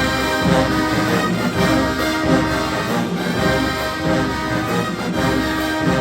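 HBCU-style marching band playing, the brass section sounding full held chords over a steady low pulse.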